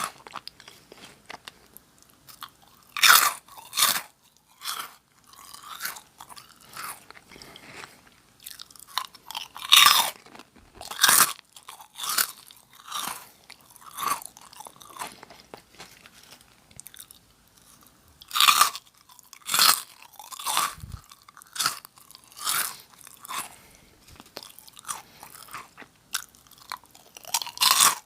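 Close-miked crunching and chewing of Nongshim Jagalchi, crisp octopus-flavoured snack crackers. Loud crunches come in clusters every few seconds, with softer chewing in between.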